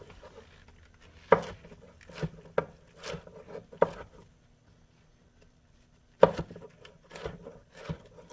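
Chef's knife chopping mushrooms on a wooden cutting board: a series of irregular blade knocks against the wood, with a pause of about two seconds in the middle before a few more chops.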